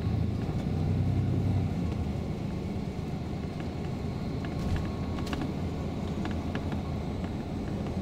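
Tour bus engine and road noise heard from inside the moving bus: a steady low rumble, heaviest in the first couple of seconds, with a couple of faint clicks near the middle.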